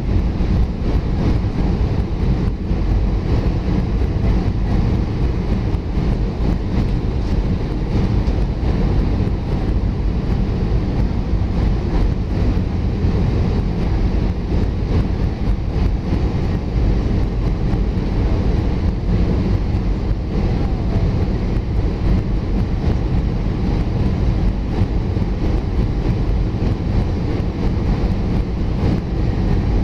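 Steady low rumble inside the cabin of an Alitalia Airbus A320 on its arrival descent, heard from a seat beside the wing: jet engine and airflow noise.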